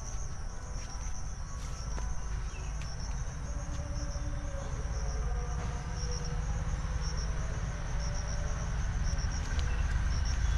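Insects chirping steadily in a high-pitched, pulsing band, over a continuous low rumble.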